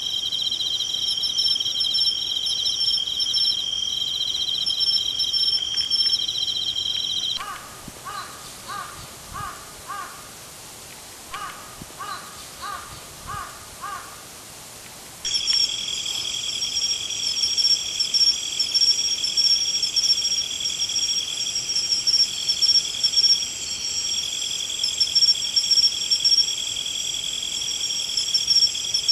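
A steady, high-pitched insect chorus trills, then cuts out abruptly about seven seconds in. In the quieter stretch, crows caw in two runs of about five calls each. The insect chorus then cuts back in abruptly and carries on.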